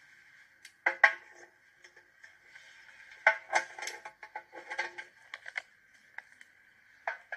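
Hen's eggs being set down in a metal basin: light clicks and knocks of shell against shell and metal. A single knock comes about a second in, then a quick run of clicks around the middle. A faint steady high-pitched tone runs underneath.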